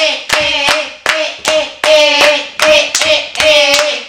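Hands clapping in a steady rhythm, nearly three claps a second, along with a singing voice holding long notes.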